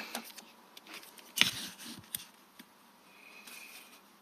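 Quiet handling of a metal ruler on a sheet of cardboard, with a couple of light clicks, then a brief scratch of a pen drawing a line along the ruler near the end.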